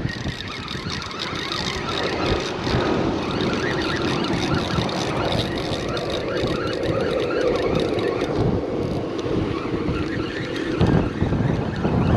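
Strong wind buffeting the microphone, a steady rushing noise with surf on the beach beneath it.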